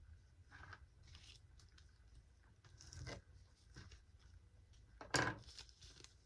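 Small parts and fine wire being handled during LED assembly: faint rustles and light clicks, with one sharper click about five seconds in.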